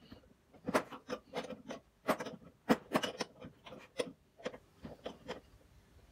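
Small open-end spanner clicking and knocking against a chrome fitting as it is tightened in short turns onto a hemp-sealed threaded port: a quick, irregular series of metallic clicks that stops about a second before the end.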